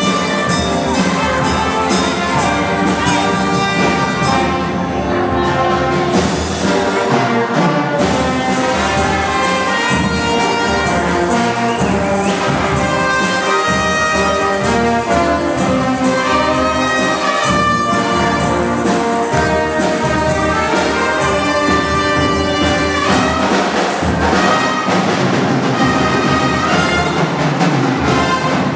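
Symphonic wind band playing a piece with brass to the fore, loud and continuous.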